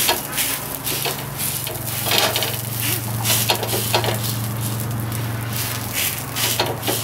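Hands patting and pressing stuffed kulcha dough flat on a hot iron tawa, making repeated soft slaps and rubs over a light sizzle of the dough cooking. A steady low hum runs underneath.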